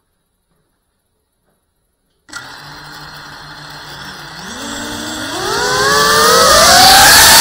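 Tiny whoop FPV drone's motors spin up about two seconds in: a whine that climbs in pitch in steps and grows much louder as the throttle comes up for takeoff.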